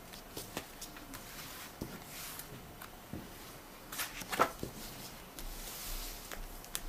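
Paper and book handling: a folded map and a role-playing rulebook being shuffled, folded and set down on a cloth-covered table, with soft rustles and scattered light clicks, the loudest a knock about four seconds in.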